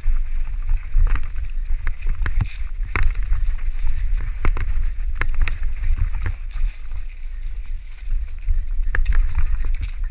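Wind rumbling on the microphone, with irregular sharp knocks and rattles from a mountain bike riding over rough trail.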